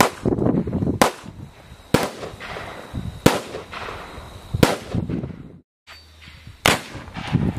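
A series of about six sharp, loud bangs, roughly a second or more apart, each trailing off in an echo, over a low rumbling background.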